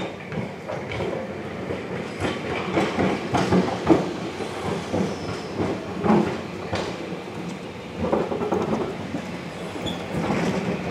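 Vintage Blackpool single-deck tram running along street track, its steel wheels knocking and clicking irregularly over rail joints and pointwork.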